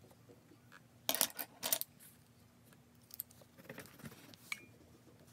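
Small hard objects clinking and clattering: two short bursts about a second in, then a few lighter clicks and taps and one brief ring.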